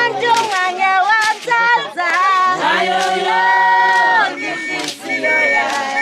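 A group of Swazi women singing together in chorus, with a long held chord from about two and a half seconds in until just past four seconds.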